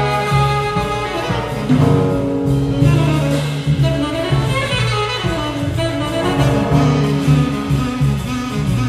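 Live jazz quartet playing: a tenor saxophone carries a sustained melodic line over upright double bass, electric guitar and drums.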